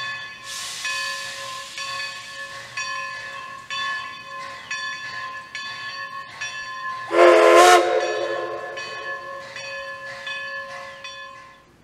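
A steam locomotive's bell rings steadily, struck again and again at an even pace, with a hiss of steam for a second or two near the start. About seven seconds in comes a short, loud blast of the locomotive's steam whistle.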